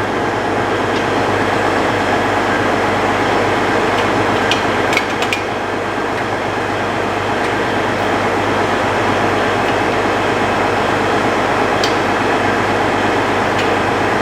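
Tractor engine running steadily under a constant drone, with a few sharp metallic knocks about five seconds in and again near the end.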